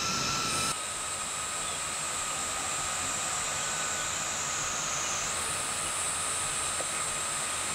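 Steady high hiss of outdoor ambience with a faint, steady high whine in it; the hiss shifts abruptly about a second in and again about five seconds in.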